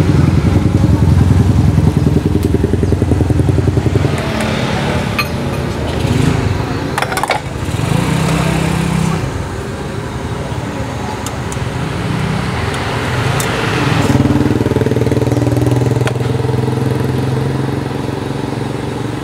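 Motorcycle engines running close by: a steady throbbing idle for the first few seconds, then engine tones that shift in pitch as bikes move off or pass. A few sharp clinks of metal cutlery against china bowls.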